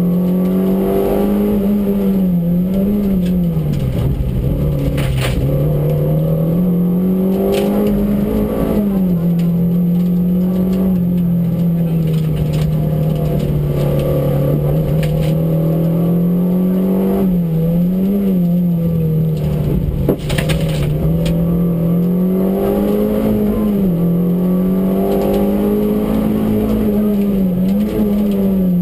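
Peugeot 205 Rallye's four-cylinder engine running hard, heard from inside the cabin at racing speed, its pitch rising and dipping every few seconds as the driver works the throttle. Occasional sharp knocks cut through, the loudest about twenty seconds in.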